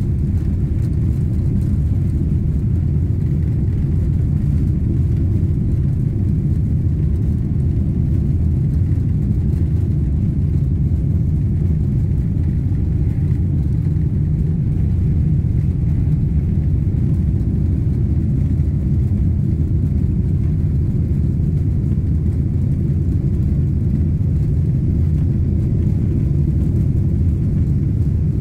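Boeing 777 cabin noise during the takeoff and initial climb: a steady, deep rumble of the engines at climb power and the rushing air, heard from inside the passenger cabin, even in level throughout.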